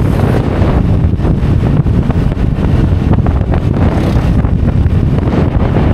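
Steady wind rush buffeting the microphone of a motor scooter travelling at road speed, with the scooter's running and road noise underneath.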